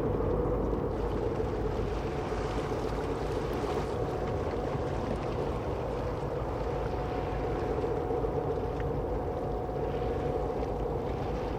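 Steady drone of a cargo ship's engine on the canal, with a low rumble underneath and a faint held hum.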